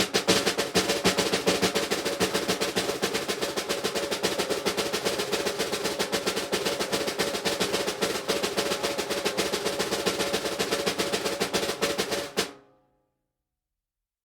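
A sustained fast drum roll, very rapid even strokes with a ringing tone under them, that dies away about twelve and a half seconds in.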